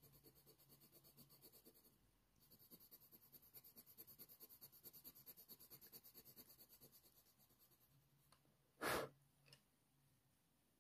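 Faint, rhythmic scratching of a Faber-Castell Polychromos coloured pencil shading on hot-press watercolour paper, about five quick strokes a second, pausing briefly near two seconds and stopping around seven and a half seconds. A single short, louder soft noise comes about nine seconds in.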